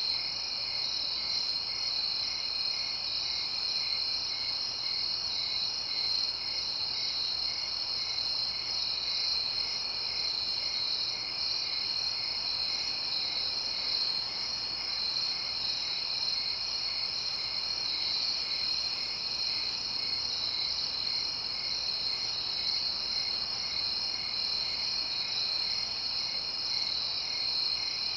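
Night-time chorus of crickets: a steady high-pitched trill with a lower, evenly repeating chirp beneath it.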